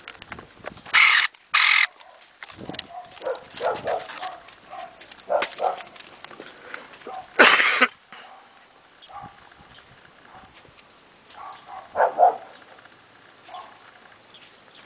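Electric pruning shears cutting through dragon fruit stems: three short, sharp cuts, two close together about a second in and one more about halfway through, with softer rustling and knocking of the plant between them.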